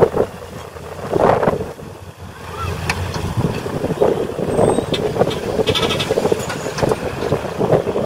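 Small dump truck running with its bed tipped up, soil sliding out of the back in an uneven rumble. A few short high beeps or squeals come in the middle.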